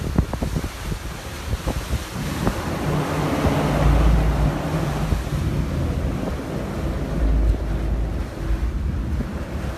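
Wind buffeting the microphone and water rushing past a motorboat under way, with the low drone of its engine beneath; the wind noise swells loudest a few seconds in.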